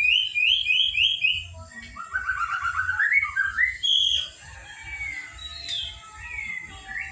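Young white-rumped shama singing: a run of about five quick repeated whistled notes, then a rising string of lower notes and scattered short whistles.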